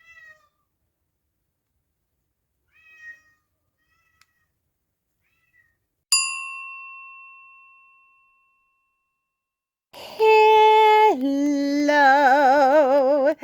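A single chime ding that rings out for about three seconds. A few seconds later comes a long, drawn-out cat meow: one held note, then a lower note that wavers.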